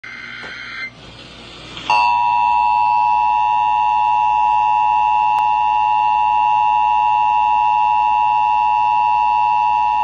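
Emergency Alert System broadcast through a portable radio's speaker: the end of a screeching digital header burst in the first second, then, about two seconds in, the steady two-tone EAS attention signal starts and holds. The attention signal introduces an Amber Alert for an abducted child.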